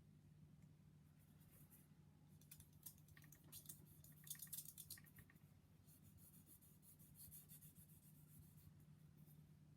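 Faint scratching of a sanding stick rubbed back and forth on a small plastic model kit part, in quick short strokes that start about two and a half seconds in, over a low steady hum.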